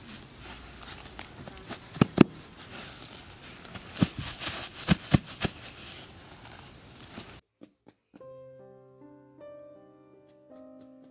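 Rustling, with a few sharp pats and knocks, as hands press cut grass turf down onto soil. After about seven seconds this cuts off, and soft piano music begins.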